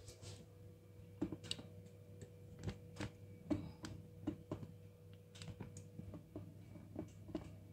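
Faint, irregular light clicks and taps, handling noise as the phone recording it is moved and set in place, over a steady low hum.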